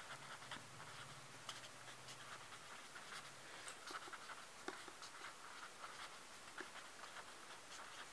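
Pen writing on paper: faint, irregular scratching of the tip as words are written out stroke by stroke.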